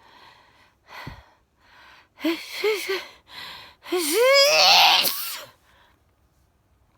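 A woman sneezing: quick breaths and short rising gasps build up over a few seconds, then one loud sneeze with a rising cry about four seconds in.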